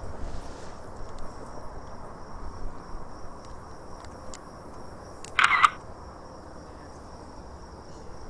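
Steady high-pitched chorus of night insects over a low outdoor hiss, with a few faint clicks and one short, louder sound about five and a half seconds in.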